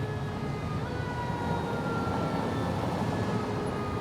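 Fire truck siren wailing, its pitch sliding slowly down and jumping back up about a second in, over a low steady rumble of engine and traffic.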